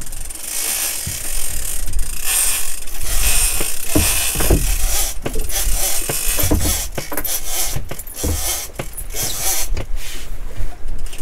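Fishing reels cranked under heavy load, gears and ratchet clicking.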